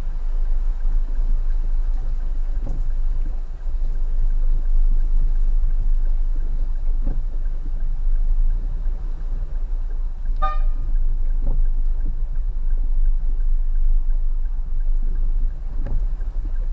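Steady low rumble of a car on the move, with a single short car-horn toot about ten seconds in.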